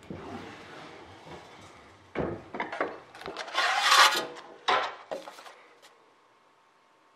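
Sheet-metal bender folding a thin 0.032-inch aluminium sheet over a bar. At first there is a low rubbing as the bending leaf moves. Then come a few sharp knocks and clunks from about two seconds in, and a loud wobbling rattle of the thin sheet as it is pulled off the bender, about four seconds in.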